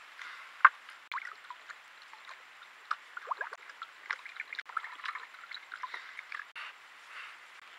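A javelina (collared peccary) drinking from a water bowl: irregular wet lapping and splashing clicks, with one sharp knock less than a second in.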